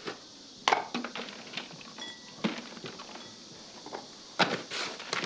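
Kitchen dishes and utensils being handled on a counter: a string of clinks and knocks, sharpest about a second in and again near the end, with softer handling noise between.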